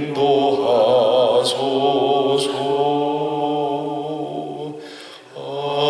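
A slow hymn sung in Korean, with long held notes and vibrato and a short break between phrases about five seconds in.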